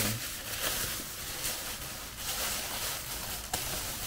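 Thin plastic carrier bag crinkling and rustling as it is handled and pulled open, with a few sharper crackles.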